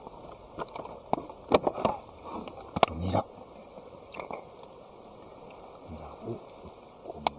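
Scattered sharp clicks and knocks, with a short low murmur of voices about three seconds in and again near the end.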